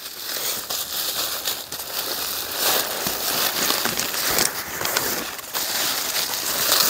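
Pink plastic packing wrap crinkling and the cardboard box's flaps rustling as hands dig through a shipping box, a continuous crackle of small clicks.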